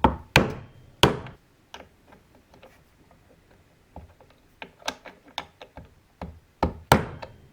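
Rubber mallet tapping a crankshaft oil seal into a chainsaw crankcase: a series of separate, uneven knocks, a few hard blows near the start and near the end with lighter taps between, as the seal is driven home.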